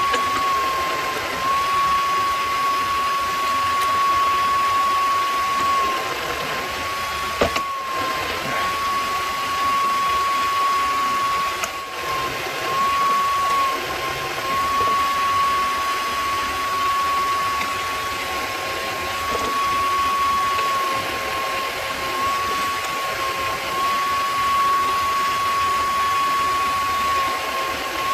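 Mini lathe running at about 1150 rpm with a steady high whine, which sags slightly in pitch now and then, while a twist drill in the tailstock bores into the spinning workpiece. A sharp click about seven seconds in.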